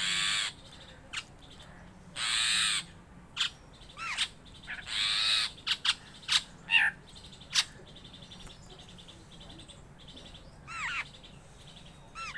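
A bird giving loud, harsh, caw-like calls, three of them a few seconds apart, with shorter rising-and-falling call notes between them. There are a few sharp clicks in the middle, and a faint rapid trill in the background in the second half.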